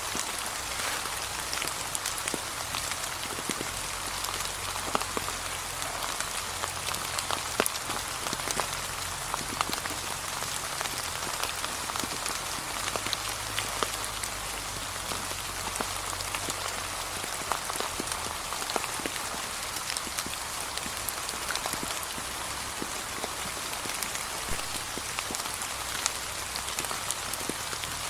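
Steady light rain falling, an even hiss with many small drop ticks scattered through it, and a faint low rumble beneath.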